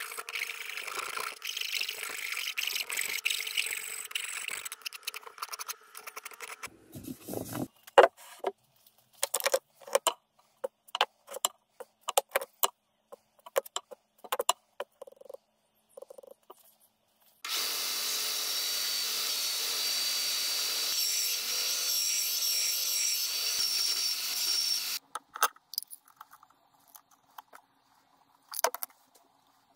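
Sandpaper rubbing on pine blocks by hand for several seconds. Then a thud and a run of light wooden clicks and knocks as loose pine pieces are set down and handled, a steady whirring noise for about seven seconds, and a few clicks near the end.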